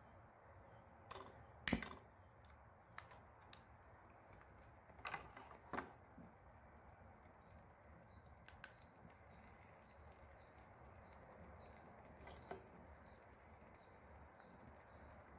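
Near silence, broken by a few short clicks and taps. The sharpest, about two seconds in, is a utility lighter being clicked to light a homemade aluminium-can alcohol stove.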